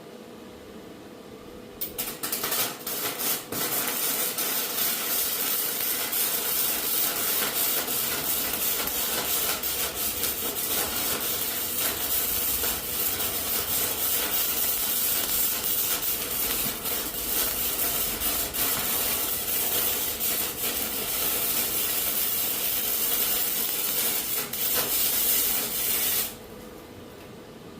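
A welding arc crackling and sizzling steadily through one long continuous bead on scrap steel. It strikes about two seconds in and cuts off suddenly near the end.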